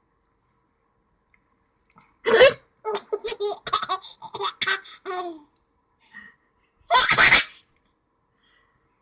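Loud hiccups, two of them about five seconds apart, with a stretch of giggling laughter between them.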